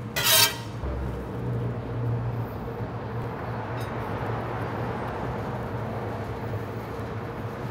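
A brief loud scrape of a metal spatula on a cast iron griddle, then a steady sizzle as buttered buns are laid on the hot griddle, over a low steady hum.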